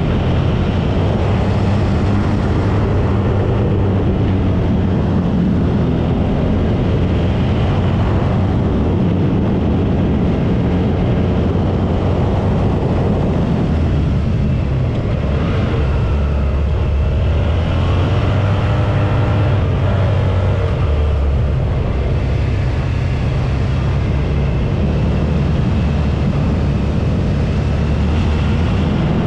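Suzuki V-Strom 650's 645 cc V-twin engine running under way, its note rising and falling with the throttle through the bends.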